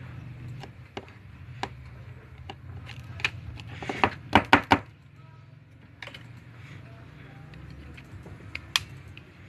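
Small sharp clicks and taps of a smartphone and small tools being handled during disassembly, with a quick run of four loud clicks about four seconds in, over a low steady hum.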